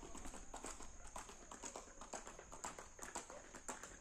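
Horse's hooves clip-clopping on a concrete road, a quick, uneven run of strikes several times a second as a ridden horse approaches.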